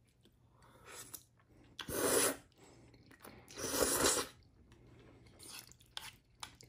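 A person slurping noodles, two long slurps about two and four seconds in, with softer chewing and small mouth noises between.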